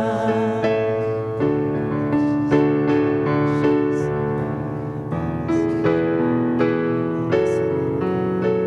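A sung note held with vibrato trails off in the first second, then a piano plays a slow ballad accompaniment of sustained chords and single notes.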